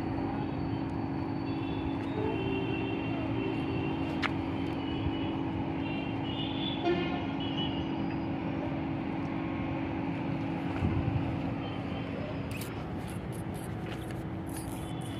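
Outdoor traffic noise: a steady engine drone with short horn toots. There is a sharp click about four seconds in and a few more clicks near the end.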